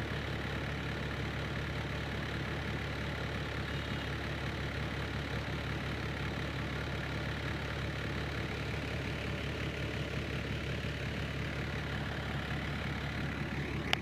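A steady, low engine hum, with a single click near the end.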